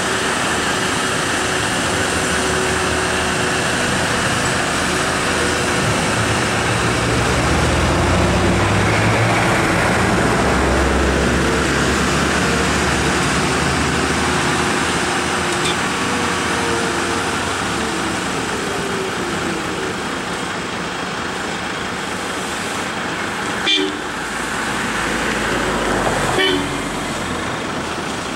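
Heavy laden diesel lorries labouring slowly through a hairpin bend, a steady engine rumble that swells and deepens for several seconds in the first half. Two short horn toots near the end.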